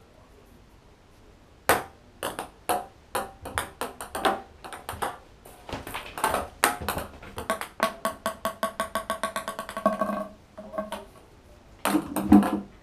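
A ping pong ball bouncing and clattering around an empty bathtub as a cat bats it, starting nearly two seconds in with scattered sharp pings. About eight seconds in the bounces come faster and faster as the ball settles, and near the end there are a few duller knocks.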